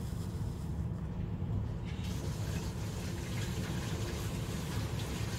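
Steady low background rumble, with a hiss that comes up about two seconds in.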